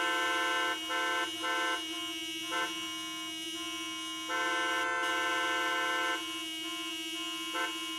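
A car horn honking: a held blast at the start, three short toots, another long blast of about two seconds, and one short toot near the end, over a steady low hum.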